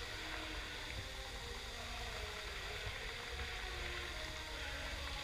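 Steady rush and splash of a musical fountain's many water jets falling into the basin, over a low rumble.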